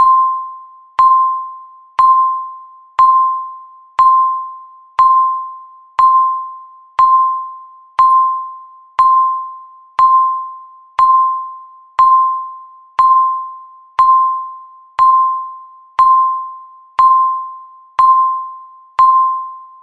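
Countdown timer beeping once a second, each beep one pure electronic tone with a sharp start that fades out before the next, marking each second left in the countdown.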